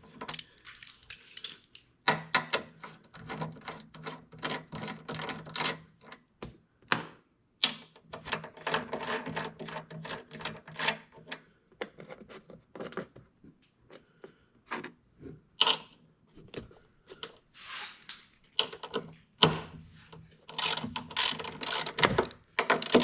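Hand ratchet clicking in rapid bursts with short pauses between, turning 14 mm strut-top nuts by hand rather than with an impact gun.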